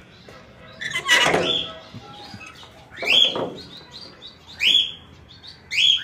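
Caged pet birds calling noisily, a series of loud calls that each rise sharply in pitch, one every one to two seconds. A louder clatter about a second in, as the metal door's bolt is drawn and the door opened.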